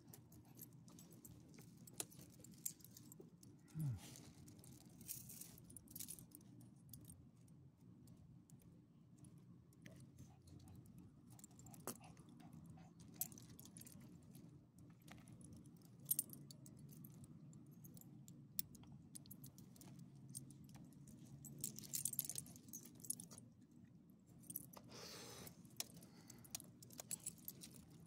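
Faint, scattered clinking and jingling of a dog's collar tags and leash hardware, with a few light rustles, over near silence. There is a short low falling hum, like a murmured "mm", about four seconds in.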